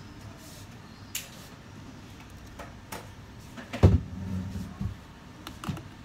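Small scattered clicks and taps of a precision screwdriver working phone screws on a silicone repair mat, with one louder thump and a short low rumble about four seconds in, over a steady low hum.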